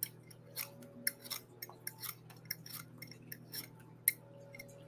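Vegetable peeler scraping the skin off a russet potato in quick, irregular strokes, about two or three short crisp rasps a second.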